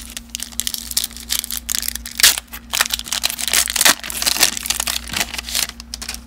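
Foil wrapper of a baseball card pack being torn open and crinkled by hand, an irregular run of crackles and tearing.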